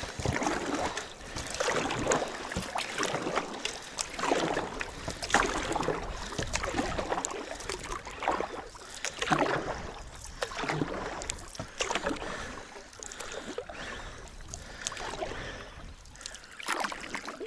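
Oars splashing and dripping as an inflatable rubber boat is rowed across shallow water, a stroke about every one and a half to two seconds.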